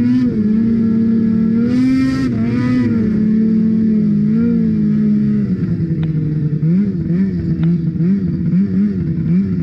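Ski-Doo 600 RS snowmobile's two-stroke engine running at high, steady revs while skimming across river water, with brief hissing bursts of spray about two seconds in. Past halfway the engine note drops, then wavers up and down about twice a second as the sled runs up onto the grassy bank.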